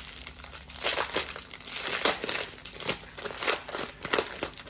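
Clear plastic zip-lock bag crinkling as it is handled, in irregular bursts of crackling.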